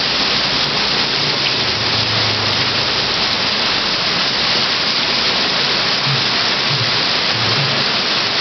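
Very heavy rain pouring down on the street, a loud, steady hiss.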